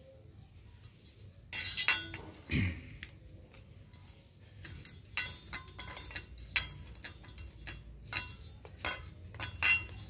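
Irregular light clicks and clinks of a washing-machine motor's aluminium stator frame being handled while its copper windings are pressed into place by hand, with a louder scrape about one and a half seconds in.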